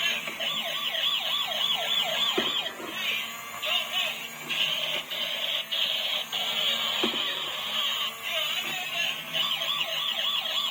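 Electronic siren from a toy vehicle's sound module: a fast up-and-down warble that breaks off and starts again several times, with a couple of clicks.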